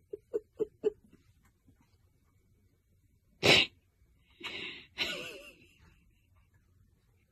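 A cat hissing: a short, sharp spit about three and a half seconds in, then a longer hiss about a second later.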